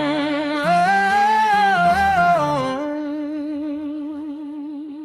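Wordless hummed vocal phrase without accompaniment, stepping up and down in pitch. Its last note is held with a wavering vibrato and fades out near the end.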